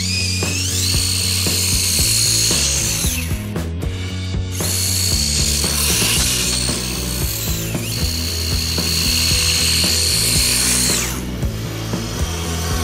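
Brushless electric motor of an RC snowmobile whining at high pitch under a rattling drive, with a steady low hum beneath. The whine climbs as it speeds up, drops away about three seconds in, climbs again a second or so later, holds steady, then falls off near the end.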